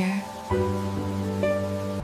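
Soft background music of sustained held chords, moving to a new chord about half a second in.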